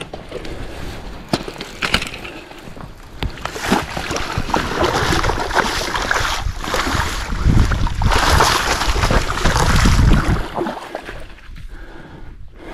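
Water splashing and sloshing as a large salmon thrashes in a landing net at the water's edge, with many sharp splashes, loudest from about four to ten seconds in.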